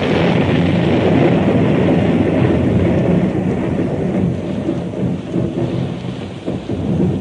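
Rolling thunder over steady rain, a storm sound effect that breaks just before and rumbles on, slowly thinning out.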